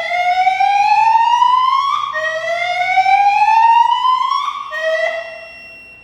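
Whoop evacuation tone from a Silent Knight 6820EVS emergency voice system's speakers. Each whoop is an electronic sweep rising in pitch for about two seconds and then starting again. The last whoop is cut off a little past five seconds in.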